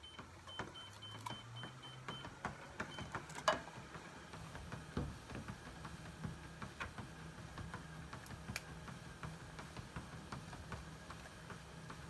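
Treadmill motor humming steadily, rising in pitch over the first couple of seconds as the belt speeds up, then holding. A young husky's paws tap and click irregularly on the moving belt, with one sharper knock about three and a half seconds in.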